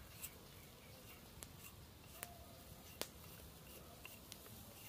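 Kitchen knife cutting thin strips off a raw carrot held in the hand: a few short, crisp cuts at irregular intervals, the sharpest about three seconds in, over a quiet background.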